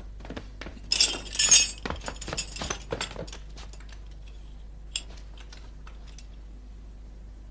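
Metal chain jangling and clinking in a bright burst about a second in, followed by a run of light clicks, then one more clink near five seconds. It is the chain on a prisoner's wooden cangue as she is brought in.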